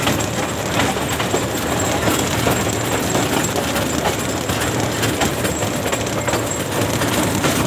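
Miniature park train running along its track, heard from aboard an open passenger carriage: a steady running rattle, with the wheels clicking over the rail joints now and then.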